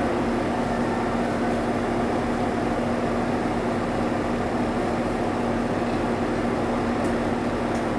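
Inside a 2002 Isuzu Erga KL-LV280L1 non-step city bus, the engine runs with a steady, even drone.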